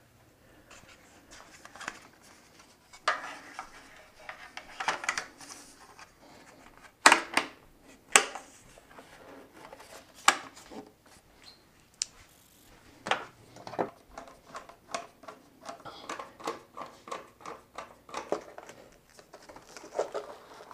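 Hand tools and motorcycle parts being handled during reassembly: scattered clicks, clinks and knocks of metal and plastic, with a denser run of quick small clicks near the end.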